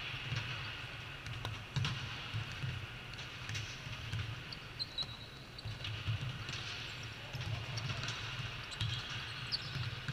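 Volleyball game sounds on an indoor sport court: scattered sharp ball hits and thuds over a haze of distant voices and a steady low hum. A brief high squeak comes about five seconds in.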